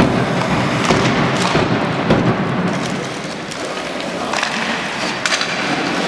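Sledge hockey play on ice: sticks, sledges and puck clattering, with several sharp knocks over a steady scraping hiss from blades and picks on the ice.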